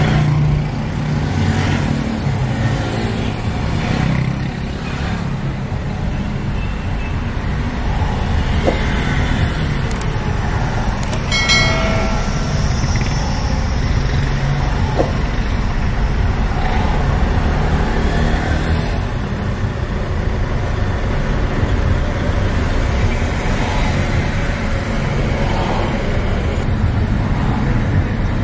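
Car engine and road noise from inside a car moving slowly in city traffic: a steady low rumble, with one short pitched tone, likely a horn, about halfway through.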